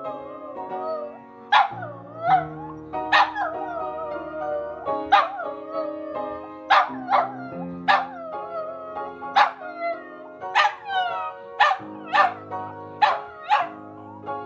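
A Lhasa Apso howling along to music: a string of short yipping howls, each sliding down in pitch, about one a second and coming faster in the second half, over music with held chords.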